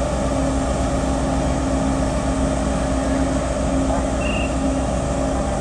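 Steady low drone of a car ferry's engines and machinery, with a constant hum tone over a rushing noise. A brief high chirp sounds about four seconds in.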